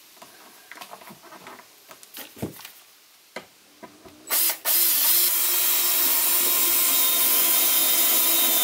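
Yellow 12V cordless drill/driver driving a screw into a shiplap board. Light taps and handling of wood at first; about four seconds in the drill gives a short burst, then runs steadily for about five seconds.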